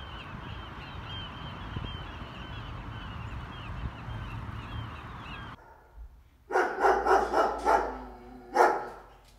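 A crowd of seabirds calls over a steady wind-like hiss, with many short overlapping cries. About six seconds in this cuts off, and a string of loud barks follows, like a dog barking.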